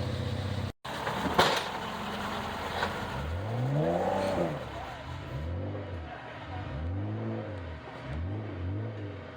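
Off-road vehicle engine revved up and down four times in short pulls, each rising and falling in pitch, after a brief cut-out and a sharp knock in the first couple of seconds.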